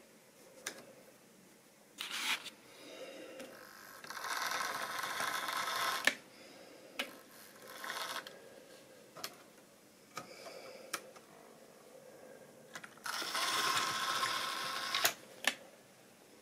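Small electric motor of a model railway locomotive whirring as it runs past on sectional track, loudest twice, about four and thirteen seconds in, with sharp clicks scattered between, typical of wheels over rail joints and points.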